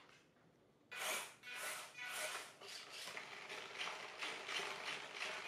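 Small hobby servos whirring in short bursts as the foam-board robot's jaw moves, starting about a second in and repeating about twice a second.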